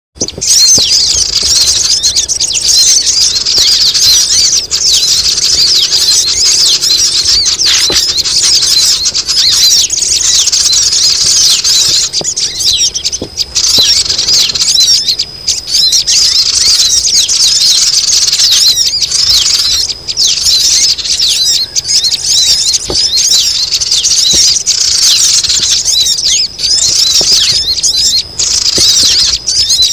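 Bird-lure recording for sogon: a dense, noisy chorus of many small birds giving rapid high-pitched chirps and squeaks without pause, meant to draw wary birds down.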